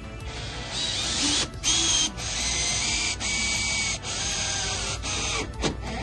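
Cordless drill with a twist bit boring into a steel door frame: a high grinding screech with a thin squeal, broken by several brief stops, then a few clicks near the end. Music plays underneath.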